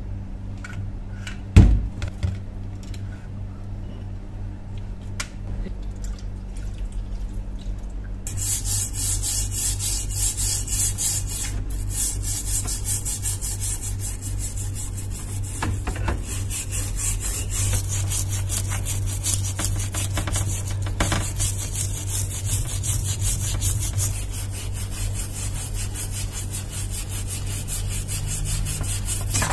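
A single sharp knock about two seconds in, then from about eight seconds a hand brush scrubbing a wet, rusty steel hammer head on a metal tray: fast, steady scratching strokes.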